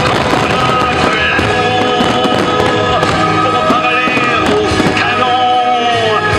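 Many aerial fireworks shells bursting in quick succession with bangs and crackles, over music playing throughout.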